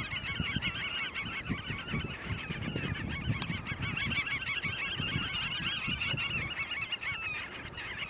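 A large flock of birds calling over one another in a continuous dense chorus of quick, wavering calls, with an uneven low rumble underneath.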